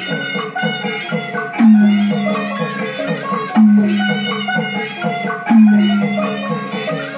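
Burmese traditional ensemble music accompanying a marionette dance. A quick run of pitched percussion notes like a xylophone or gong circle plays over a deep drum stroke about every two seconds, each stroke sagging slightly in pitch.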